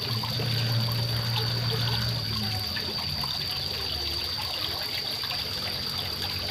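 Small waterfall trickling and splashing steadily into a fish pond, with a steady high-pitched tone throughout and a low hum that stops about two and a half seconds in.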